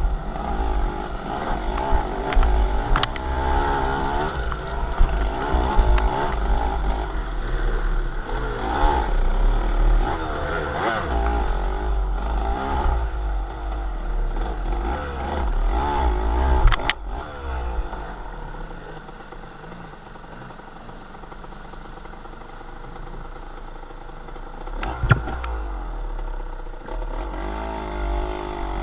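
A vehicle engine running on the move, its pitch rising and falling, over a heavy low rumble of road or wind noise. It goes quieter for several seconds past the middle, with a few sharp knocks.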